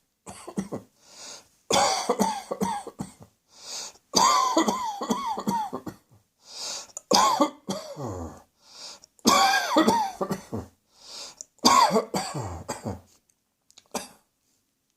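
A person coughing in about five loud fits of rapid, hacking coughs with voice in them, with short pauses between the fits and a few smaller coughs at the start and near the end.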